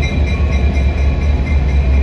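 BNSF SD60M diesel-electric locomotive passing close by, its EMD 710 prime mover running with a deep steady rumble and a steady high whine over it.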